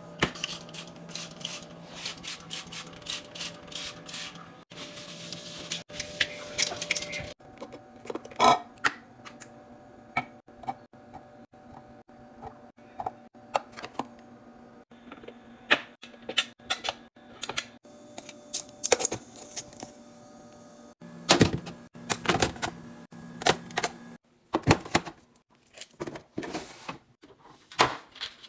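Groceries and containers being handled and set down on shelves: a long run of irregular clicks, taps and knocks with some rustling of packaging, over a faint steady hum.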